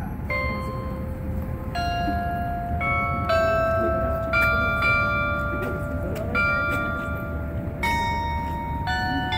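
The bells of an outdoor glockenspiel playing a slow tune: about nine single notes struck roughly once a second, each ringing on under the next.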